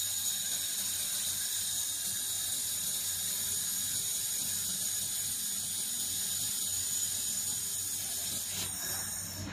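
Handheld fiber laser welding gun welding a steel T-joint: a steady high-pitched hiss that stops near the end.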